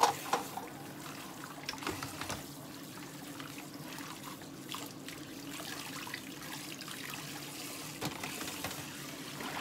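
Tap water running and trickling into a kitchen sink while dishes and utensils are washed by hand, with occasional light clinks and knocks.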